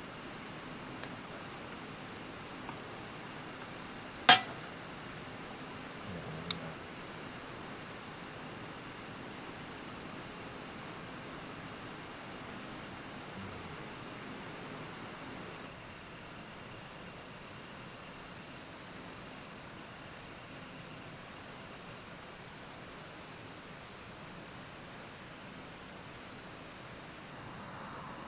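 Insects trilling steadily in a high, pulsing chorus. A single sharp click or knock about four seconds in, and a fainter one a couple of seconds later.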